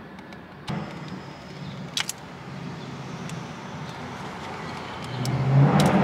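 Two sharp clicks, about a second in and again about two seconds in, as a flathead screwdriver pries at the airbag wiring connectors behind a steering wheel. Under them is the low steady hum of a nearby motor vehicle, which grows louder near the end.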